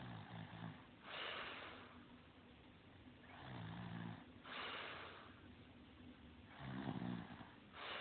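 A sleeping person snoring: three breaths about three seconds apart, each a short low buzzing snore followed by a breathy rush of air.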